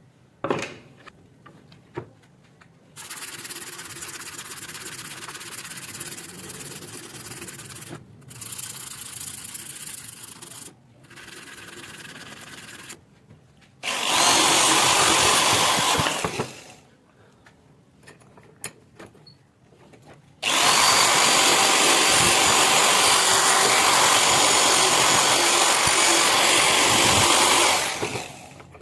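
Handheld power tool running in a series of bursts against the metal of a pair of garden shears during rust removal and polishing: several softer runs, then two loud ones, the longest taking up most of the last third.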